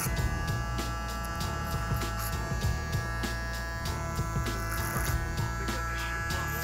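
Electric hair clipper buzzing steadily as it cuts hair over a comb (clipper-over-comb) to remove excess bulk, with background music underneath.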